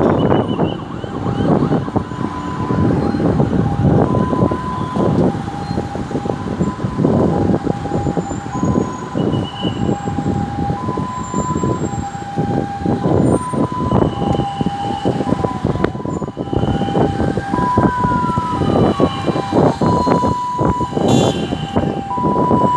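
Ambulance siren sounding a hi-lo two-tone, switching between two pitches roughly every three-quarters of a second, over heavy road-traffic noise. Twice in the middle, a siren wail slowly rises and falls over the two-tone.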